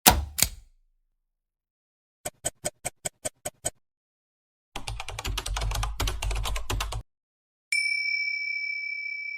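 A string of separate sound effects: a quick double click, then a run of eight evenly spaced clicks, then about two seconds of fast keyboard typing clatter. Near the end a single bell-like ding sounds and rings on, fading slowly.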